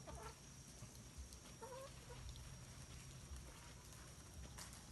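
Domestic hens clucking faintly: two short calls, one right at the start and one just under two seconds in, over a low rumble.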